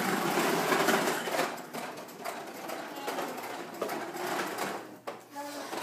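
Child's toy push lawn mower whirring and rattling as it is pushed, loudest in the first second or so and then fainter.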